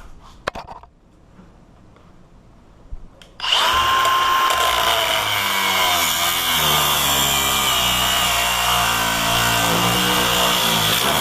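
A few light handling clicks, then about three seconds in an angle grinder spins up with a rising whine. It cuts into the metal body of a Master Lock M50XKAD disk padlock: a loud, steady high whine with grinding hiss.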